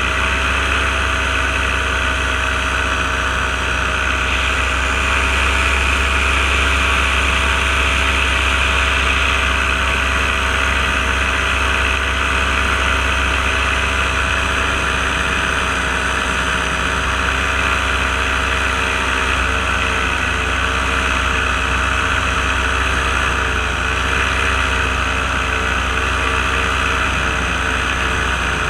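Paramotor engine and propeller running steadily in cruising flight, with a constant rush of air past the microphone; the engine note wavers slightly near the end.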